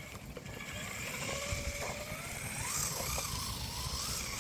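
Traxxas 4-Tec 2.0 RC touring car's brushed electric motor whining, rising and falling in pitch as the throttle is worked. The car is sliding on duct-taped tyres, with a low rumble of tyre noise underneath.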